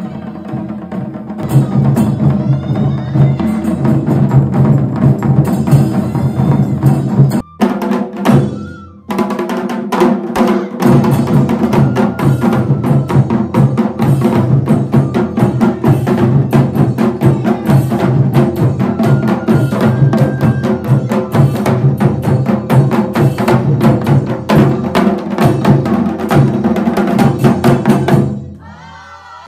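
Japanese taiko ensemble: several taiko drums beaten in a fast, steady rhythm, with shinobue bamboo flutes playing a melody over them. The music dips briefly about eight seconds in and fades out near the end.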